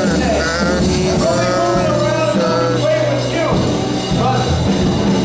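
Live worship band playing a song, with voices singing the melody over steady bass notes.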